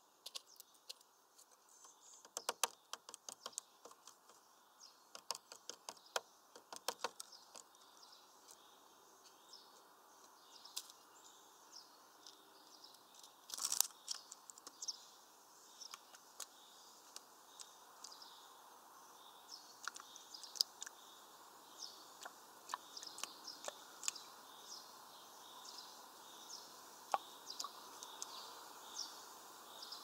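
Small birds at a clear plastic water tray: sharp taps and clicks of feet and beaks on the plastic, with a louder knock about fourteen seconds in, and a great tit splashing as it bathes near the end. Faint high chirps of other birds come and go throughout.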